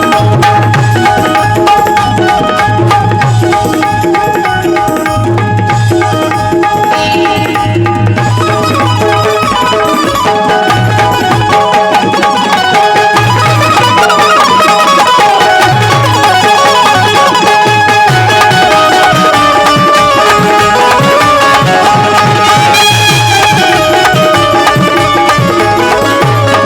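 Instrumental music of a Marathi bhimgeet: a steady hand-drum rhythm under a melody of long held notes, with no singing.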